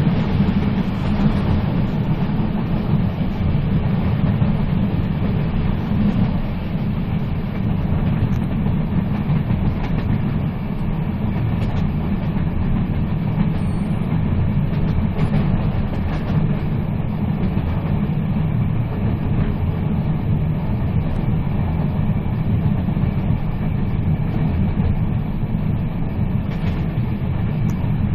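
A moving train running steadily: a continuous low rumble, with occasional faint clicks of the wheels over the rails.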